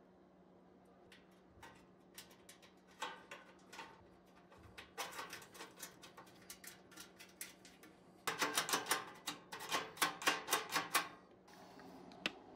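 Small metal hardware and hand tools being handled at an electrical breaker panel: scattered clicks and taps, then a quick run of sharp clicks for about three seconds starting about eight seconds in, over a faint steady low hum.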